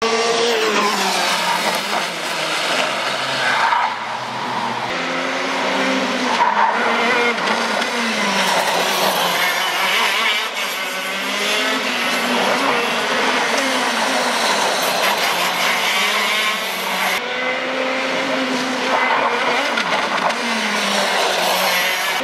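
Two-stroke shifter kart engines revving as several karts pass through the corners. The engine notes rise and fall over and over and overlap one another.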